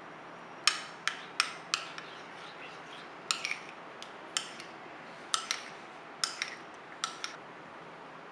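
Metal teaspoon clinking against a ceramic bowl as set jelly is scooped out: a dozen or so sharp, ringing clinks at uneven intervals.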